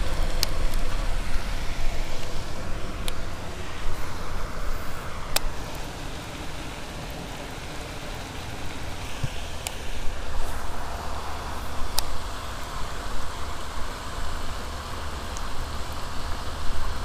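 Wind buffeting the microphone, a steady low rumble and hiss, with a few single sharp ticks.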